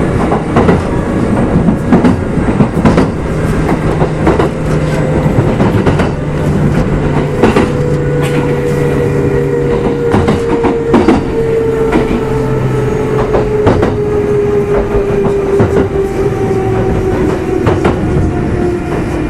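Running sound heard inside a Kintetsu 2610 series electric train motor car: wheels clicking over rail joints under a steady rumble, with the traction motor and gear whine slowly falling in pitch as the train slows.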